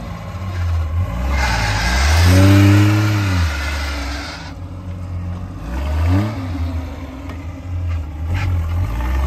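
Engine of a tube-frame off-road buggy working at low revs over rough dirt, with a loud rev that rises and falls about two seconds in, accompanied by a rush of noise, and a shorter rev about six seconds in.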